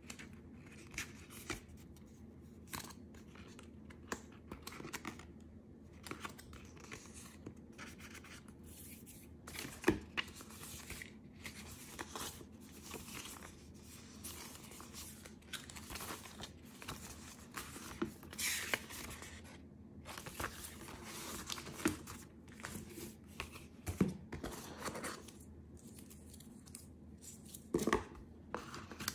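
Paper and card packaging of an iPad Air box being handled: rustling, sliding and pulling at the paper documentation sleeve and cards, with a few light knocks against the box's paper tray.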